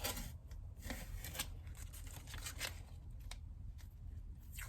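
Faint handling noises: a few light, scattered clicks and rustles.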